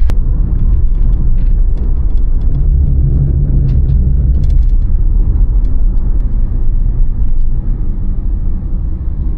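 Steady low rumble of a car driving along: road and engine noise.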